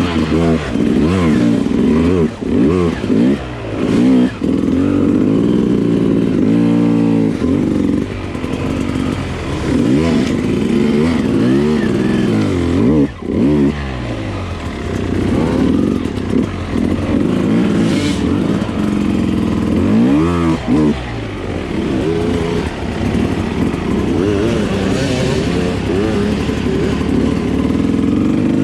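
Enduro dirt bike engine, heard close from the bike, its revs climbing and falling again and again as the throttle is opened and shut and the gears are worked.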